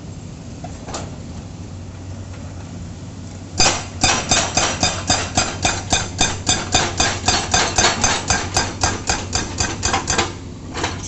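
Excavator-mounted hydraulic breaker hammering into concrete road pavement: a fast, even train of loud strikes, about five a second, starting about three and a half seconds in, stopping about ten seconds in, then a few more strikes near the end. The excavator's diesel engine runs steadily underneath.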